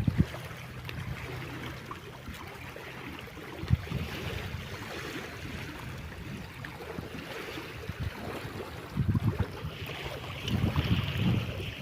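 Dnieper river water washing and lapping in a steady rush, with gusts of wind buffeting the microphone as low rumbles several times, strongest near the end.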